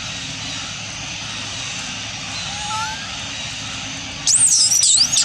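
A macaque's high-pitched scream, wavering up and down for about a second near the end, is the loudest sound. Beneath it runs a steady background hiss, with a couple of faint short chirps near the middle.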